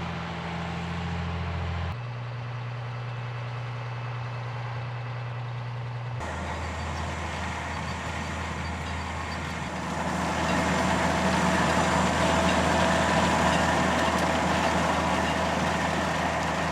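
Six-cylinder DAF diesel engine of a Cebeco ZA 215 EH self-propelled sugar beet harvester running steadily, its pitch changing suddenly twice in the first six seconds. From about ten seconds in it gets louder, with more machinery noise over the engine.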